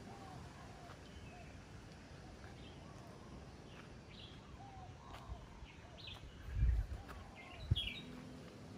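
Small birds chirping and calling on and off over a faint outdoor background, with two low thuds about two thirds of the way through.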